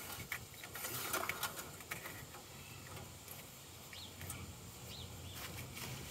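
Light clicks and knocks of hands handling parts in a truck's engine bay, mostly in the first two seconds. Birds chirp briefly twice, about four and five seconds in.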